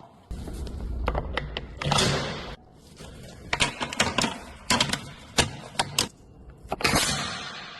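A quick, irregular series of sharp clicks and taps, with a couple of short rushing swells between them.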